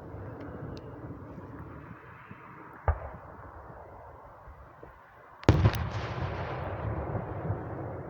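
Fireworks going off: a bang about three seconds in, then a louder bang a little past halfway that trails off in a long rumble.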